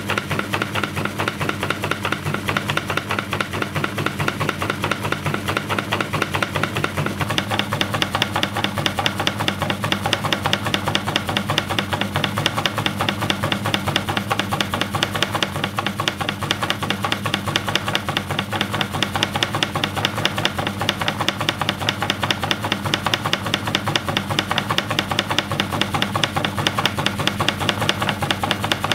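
Washing-machine motor running steadily, its crank driving a wooden slide back and forth in a fast, even clatter over a steady motor hum; the clatter turns harsher about seven seconds in.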